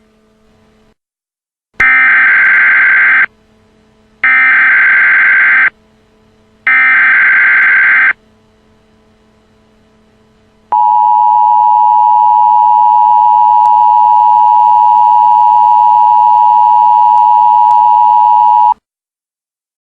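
Emergency Alert System tones: three screeching digital header bursts, each about a second and a half long and evenly spaced, then after a pause the steady two-tone attention signal, held for about eight seconds before it cuts off suddenly.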